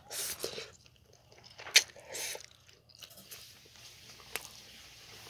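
A person eating spicy instant noodles with metal chopsticks: noisy slurps and chewing, with a sharp click of the chopsticks against the bowl just under two seconds in. A faint steady hiss follows in the last couple of seconds.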